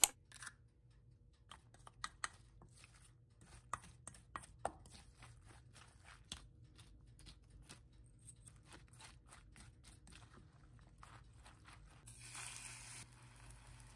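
Wooden spoon mixing shredded cabbage, carrot and a raw egg in a stainless steel bowl: irregular soft crunches and light taps. A brief rush of hiss comes near the end.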